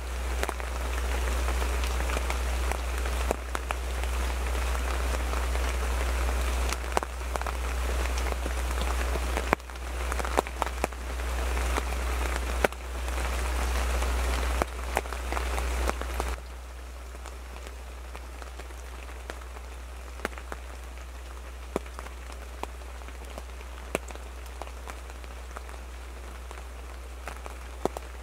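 Rain pattering on the fabric of a hunting-style photo blind, a dense patter of many drops. About two-thirds of the way through it drops abruptly to a much lighter patter of scattered single drips.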